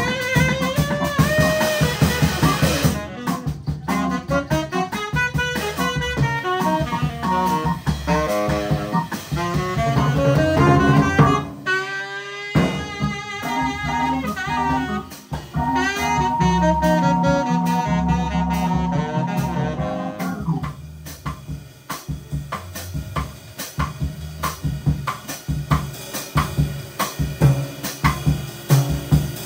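Live jazz band playing mod jazz: a saxophone carries the melody over drum kit and guitar. There is a short break about twelve seconds in. In the last third the drums take over with steady hits and fewer held notes.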